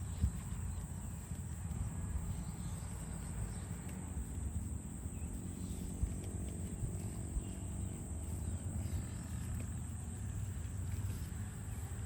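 A cow lowing in one long, low call from about four to eight seconds in, over a steady low rumble and a faint high whine.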